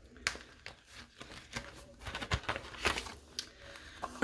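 Paper banknotes and a clear plastic cash envelope being handled, a run of short crinkles, rustles and clicks.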